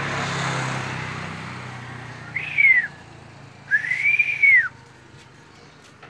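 Two clear whistled notes, each rising and then falling in pitch: a short one, then a longer one about a second later. Before them, the low sound of a passing motor vehicle fades away.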